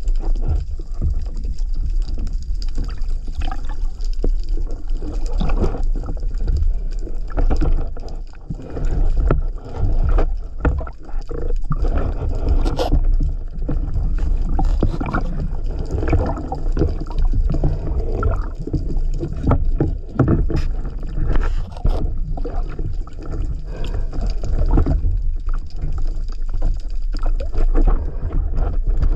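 Water sloshing and gurgling against a camera in the sea during spearfishing, with a steady low rumble and many irregular knocks and clicks.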